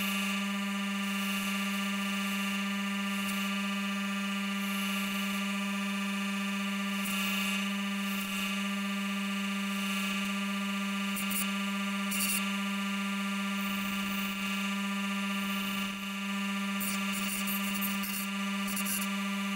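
Delta bench grinder running with a steady whine while the steel of a fork is pressed against the spinning grinding wheel, giving short bursts of high grinding hiss at each pass as its sharp edges are ground smooth.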